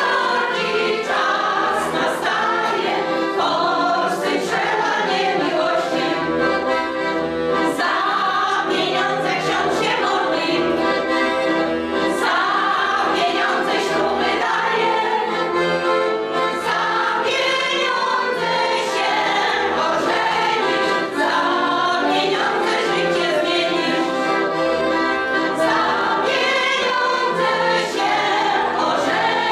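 A small amateur choir of older women and men singing together with accordion accompaniment, without pause.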